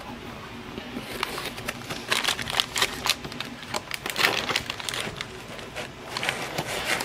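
Clear plastic packing film crinkling and rustling as hands work inside a cardboard box of packaging, with irregular crackles starting about a second in.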